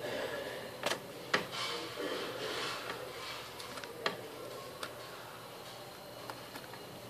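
Small metal tools clicking and tapping against the connector and its metal work plate during soldering on an iPod charging port: about four sharp clicks, the loudest a little over a second in, with a soft scratchy rustle in the middle.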